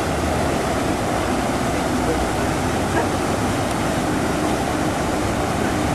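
Ornamental fountain's water jets splashing into the basin: a steady, even rush of water.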